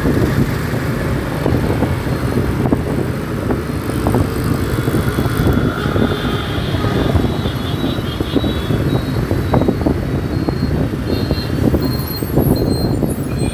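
Road traffic heard from a moving vehicle: a steady low rumble of engines and tyres, broken by frequent short knocks.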